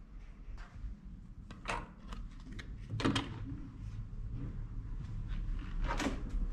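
Hotel room door being opened: a few clicks and knocks from the electronic card-key lock, lever handle and door, loudest about three seconds in and again near the end, over a steady low hum.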